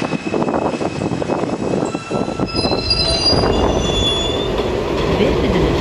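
Subway train sound effect: wheels squealing in several thin high tones over the train's rumble and rattle, as a train slows into a station. The low rumble swells from about halfway through.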